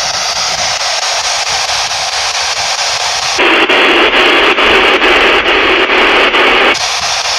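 Spirit box sweeping through radio frequencies, giving a steady hiss of static. About three and a half seconds in, the static turns louder and duller, choppy with brief dropouts, for about three seconds, then falls back to the thinner hiss. The owner thinks the box is broken and only barely working.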